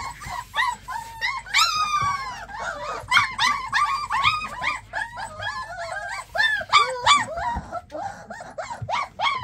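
A litter of three-to-four-week-old puppies whining together: many short, high calls that rise and fall in pitch, several puppies overlapping at once.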